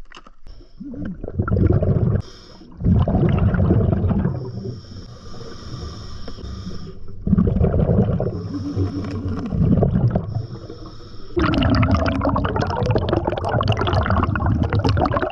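Scuba diver breathing through a regulator underwater. Long gurgling rushes of exhaled bubbles alternate with a quieter hiss as air is drawn in, about three breaths in all.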